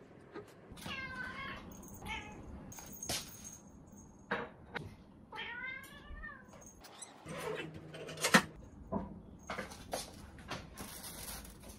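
A cat meowing in two wavering calls, one about a second in and another around six seconds in, between scattered clicks and knocks. The loudest of these is a sharp knock a little past eight seconds.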